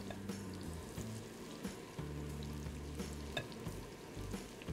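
Batter-coated mushroom pieces sizzling as they are lowered one by one into hot groundnut oil in a kadai for deep-frying, with a few small splashes. Soft background music with low held notes plays underneath.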